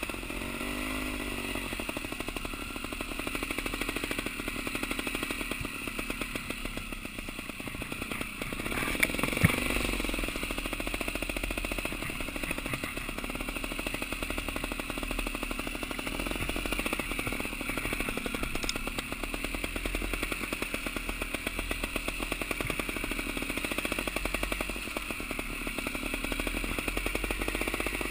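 Off-road motorcycle engine running steadily with an even rapid pulse as the bike rides a rough, rocky trail, with rattling from the bike. Two sharp knocks come about nine and a half seconds in.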